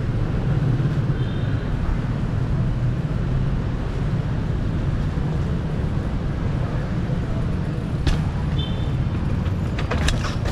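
Steady street traffic and road noise heard while riding a mountain bike through city streets, with wind rumbling on the microphone. There are two brief high chirps, one about a second in and one near the end, and a few sharp clicks near the end.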